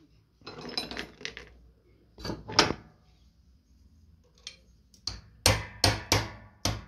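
Handling rustle, then sharp knocks of a hand tool being tapped on the car's door parts: a pair about two seconds in and a quicker run of four near the end.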